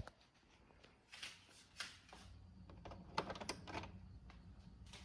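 DeLonghi Nespresso Lattissima espresso machine being readied and started: a sharp click and soft handling swishes, then about two seconds in the machine's pump starts a low steady hum with a run of rattling clicks as the shot begins.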